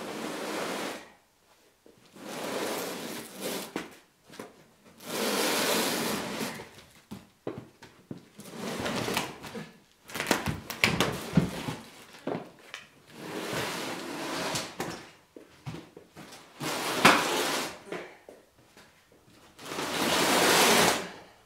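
A heavy cardboard box holding a drill press being dragged and shoved across a concrete floor in repeated heaves: about eight scraping, sliding pulls, each a second or two long with short pauses between, and a few knocks along the way.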